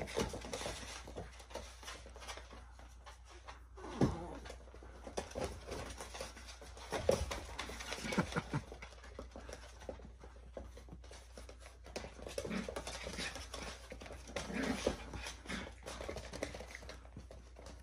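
A Miniature Schnauzer and his seven-week-old puppies playing: scattered paw scrabbling and pattering on a vinyl floor covering, with a few short dog vocal sounds, the loudest about four, seven and eight and a half seconds in.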